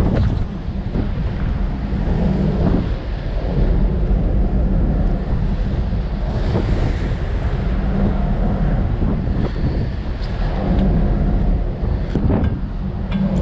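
Strong wind buffeting the microphone over the rush of rough, breaking sea along a ship's hull. A few brief knocks come through, one near the start and a couple near the end.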